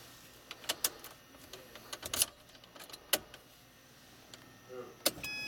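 Ignition key and its fob going into a Subaru Forester's ignition lock and being turned: a run of sharp clicks and key jangles, then a short electronic chime near the end as the ignition comes on.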